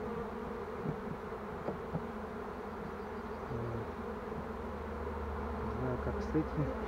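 Honeybees of a small caught swarm buzzing steadily, just shaken off a frame into the hive, with a few light knocks.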